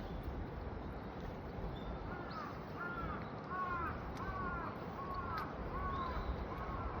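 A crow cawing repeatedly, about ten short caws at roughly two a second, starting about two seconds in. Steady outdoor background noise runs underneath.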